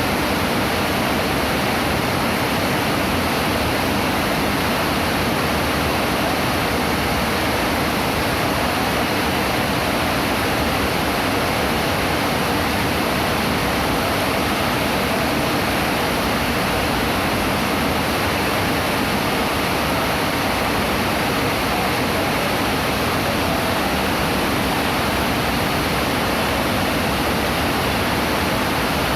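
Rain falling steadily and hard: a dense, even hiss that does not let up.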